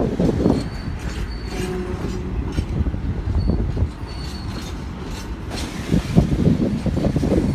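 Freight train wagons rolling slowly through a crossover into a passing loop: a steady rumble and clatter from wheels on the rails, with brief faint wheel squeals now and then. Gusts of wind buffet the microphone.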